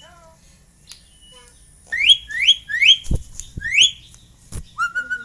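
Pet myna (jalak) whistling: four quick, loud rising whistles about two seconds in, then a longer, level whistled note near the end, with two dull knocks in between.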